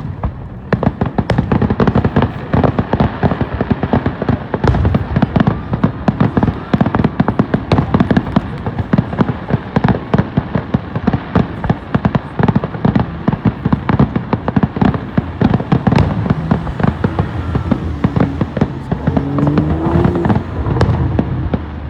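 Fireworks display: a dense, continuous barrage of bangs and crackles, many reports a second, with low booms underneath.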